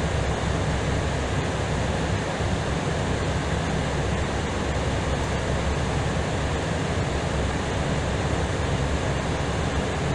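Steady rushing in-flight noise inside an Airbus A320ceo on approach, an even roar of airflow and engines with no distinct events.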